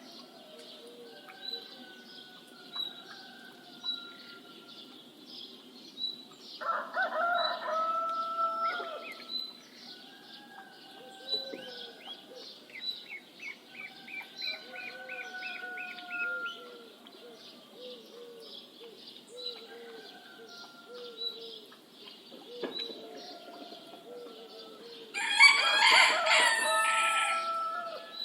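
Rooster crowing twice, a long call about seven seconds in and another near the end, over a dawn bird chorus: a small bird chirping steadily about once a second, a brief trill, and lower repeated calls.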